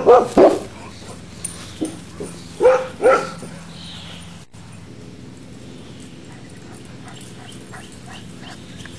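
Dog barking in play. A quick run of loud, high barks opens it, then a few short yips about two seconds in and two more barks around three seconds in.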